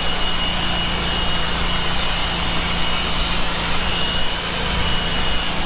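A machine running steadily: an even rushing noise with a constant high-pitched whine and a low hum underneath.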